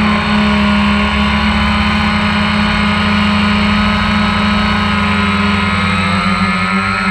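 DJI Phantom 1 quadcopter's propellers and motors buzzing steadily in flight, picked up close by the camera riding on the drone, the pitch shifting slightly near the end.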